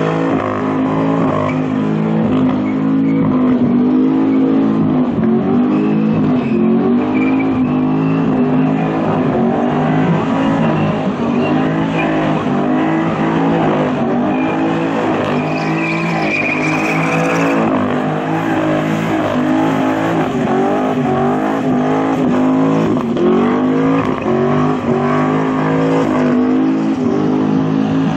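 Holden Commodore engine held at high revs during a burnout, the note wavering up and down as the rear tyres spin. A tyre squeal comes through for a couple of seconds around halfway through.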